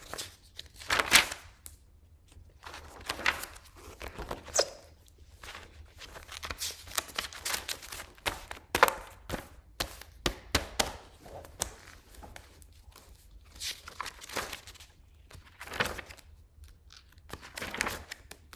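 Paper handouts being handled, with repeated rustling swishes and crinkling and a few light knocks.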